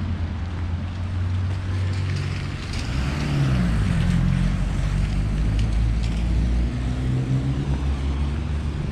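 Street traffic: car engines running and tyres hissing on wet asphalt as vehicles pass, the hiss swelling to its loudest about three to four seconds in.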